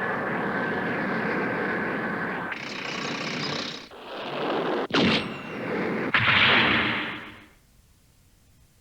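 Retro anime battle sound effects: a steady noisy rumble with a faint held tone, then a run of blasts and a sharp impact, each louder than the last, that cut out to near silence about a second before the end.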